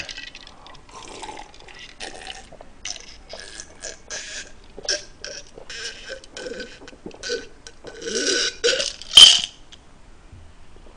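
A man gulping down a glass of cola in a run of quick swallows, with burping, and a loud sharp gasp at about nine seconds.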